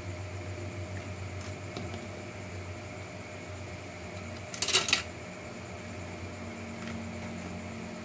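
Small plastic RC chassis parts handled by hand, with a few light clicks and a short burst of clattering a little past halfway, over a steady low hum.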